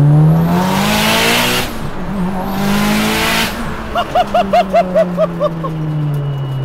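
Mitsubishi Lancer Evolution VIII's stroked 2.2 L turbocharged 4G63 four-cylinder under hard acceleration, heard from inside the cabin. It rises through two pulls with a quick upshift between them and a loud rushing hiss on each pull, then falls away as the driver lifts off. A passenger laughs in short bursts about four seconds in.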